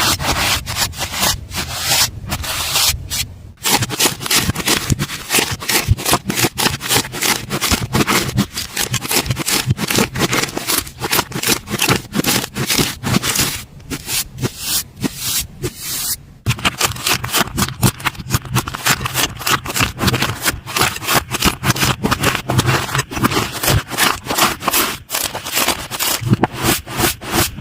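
Slime being squished and pressed by hand: a dense run of quick pops and crackles, pausing briefly about three and a half seconds in and again about sixteen seconds in.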